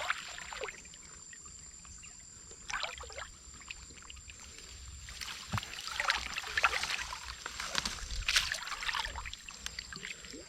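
Water splashing and sloshing in irregular bursts: a few short splashes, then a longer run of sloshing in the second half.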